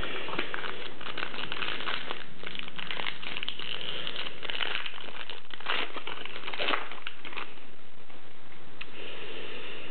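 Foil wrapper of a trading-card pack crinkling and crackling as it is handled and torn open by hand, in many short irregular rustles.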